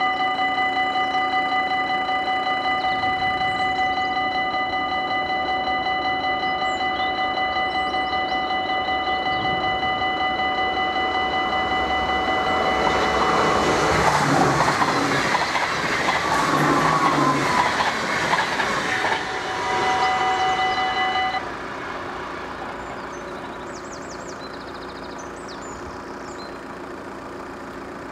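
Level crossing warning bells ringing steadily with the barriers down. About halfway through, an electric InterCity train passes, its rush of wheel and rail noise building and fading over several seconds. The bells cut off suddenly about three quarters of the way through.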